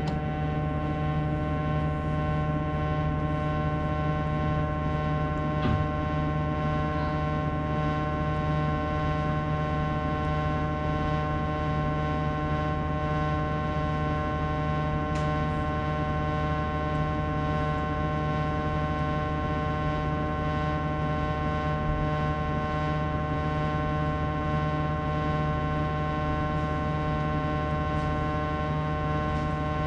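Sharp AY-J40S-W air conditioner giving off a steady, unchanging drone of several pitched tones, a fault noise that a repair of its frequency-related fault did not cure.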